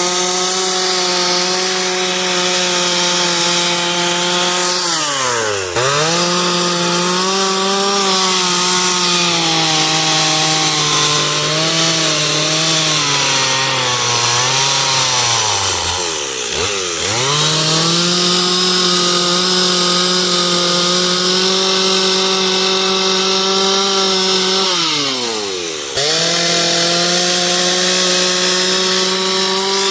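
Gas chainsaw running at high revs while carving into a wooden log. The engine speed sags and picks back up three times, with a short drop and a jump back up near 6 seconds and again near 26 seconds.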